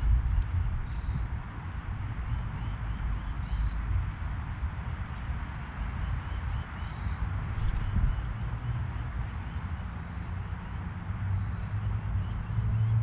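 Wild birds calling around a feeder: short, high chips repeated irregularly, over a steady low rumble like wind on the microphone.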